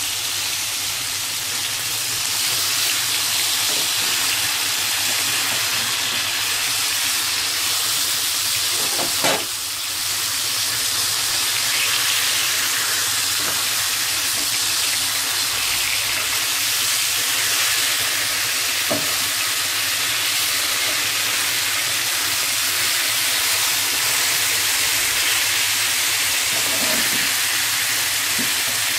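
Two masala-marinated pomfret shallow-frying in oil in a non-stick pan: a steady sizzling hiss. A single brief knock comes about nine seconds in.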